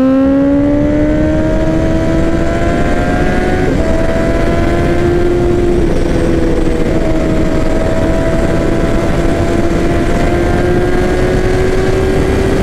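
Sport bike engine running at high revs while riding, its pitch climbing under acceleration for the first few seconds and then holding fairly steady, with wind rushing over the microphone.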